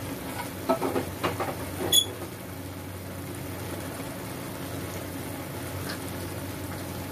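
Pot of papaya and coconut-milk broth simmering on the stove with a steady bubbling hiss. In the first two seconds a spoon knocks and clinks a few times, ending in one sharp ringing tap, as sugar is added.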